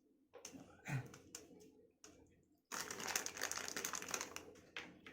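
Crinkling and rustling with scattered light clicks and knocks: a dull knock about a second in, a dense stretch of crinkling for about two seconds in the middle, and a couple of sharp clicks near the end.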